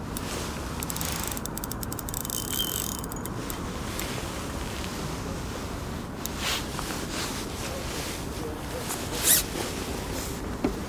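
Fixed-spool reel on a feeder rod being wound while playing a hooked fish: a couple of seconds of rapid fine ticking, then scattered clicks, the sharpest about nine seconds in.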